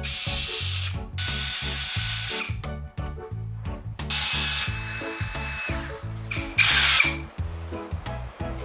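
Power drill-driver running in several short bursts as it backs screws out of a wall, with a whining motor tone.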